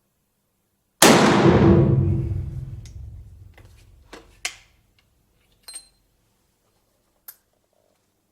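A single shot from a Bergara BA13 TD single-shot rifle in 45-70 Government about a second in, a loud boom that dies away over about three seconds. A few short faint clicks follow.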